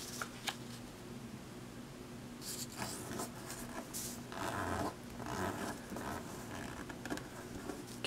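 Origami paper rustling and crinkling as it is folded and creased by hand: soft, scattered scrapes, a little louder about halfway through.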